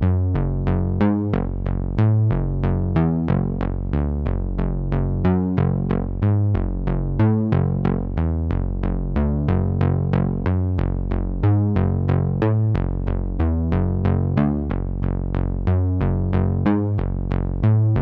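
Background music: an electronic synthesizer track with a steady pulsing beat of about three to four notes a second.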